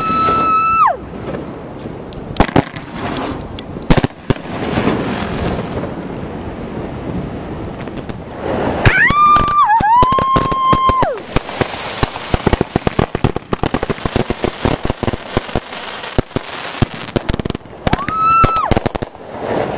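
Consumer fireworks going off: whistles that rise and then hold a high steady pitch, once near the start, twice around the middle and once near the end. Between them come sharp bangs and a long stretch of dense crackling and hissing from a spark fountain.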